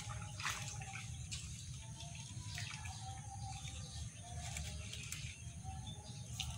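Faint outdoor ambience: a steady low rumble with faint, distant wavering tones and a few light clicks.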